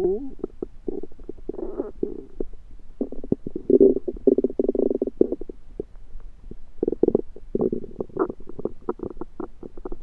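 Stomach gurgling and rumbling: irregular pops and bubbling, with longer gurgles a few seconds in and again near the end. The noises come from an upset stomach after eating food the owner thinks was undercooked.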